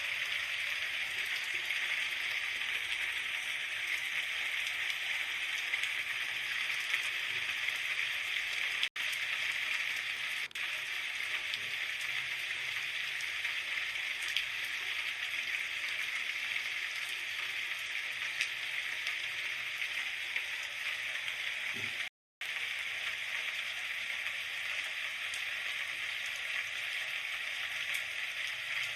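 Steady hiss of rain falling, an even wash of fine drops with no let-up, briefly dropping out to silence twice.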